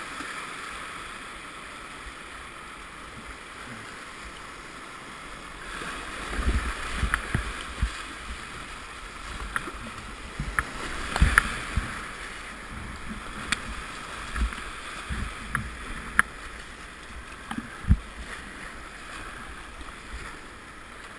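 Whitewater river rushing steadily, with kayak paddle strokes splashing and knocking irregularly from about six seconds in.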